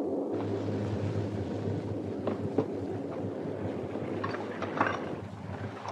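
Passenger ship's onboard ambience: a steady wind-and-sea rush over a low, even engine hum, with a few light knocks and clatters around the middle and toward the end.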